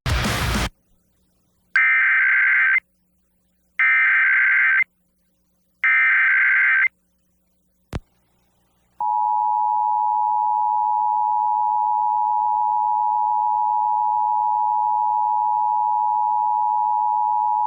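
Emergency Alert System Required Monthly Test tones on an FM broadcast. After a brief burst at the very start come three one-second bursts of the SAME header's screechy data warble, about two seconds apart. About nine seconds in, the steady two-tone EAS attention signal begins and holds through the end.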